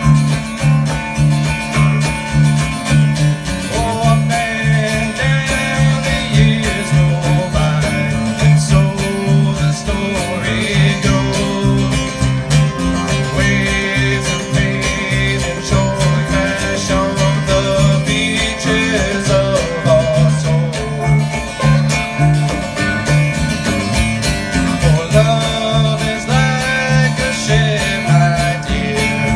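Live bluegrass band playing, with acoustic and electric guitars over hand drums and a steady, pulsing low bass line.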